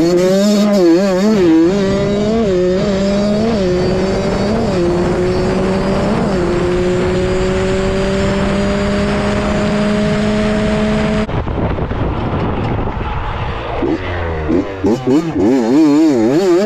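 A 2001 Honda CR80's two-stroke single-cylinder engine under hard throttle, shifting up through several gears in quick succession. It then holds one gear while its pitch slowly rises as the bike gains speed. About eleven seconds in the sound cuts off abruptly, and near the end the engine is heard again with its pitch wavering quickly up and down.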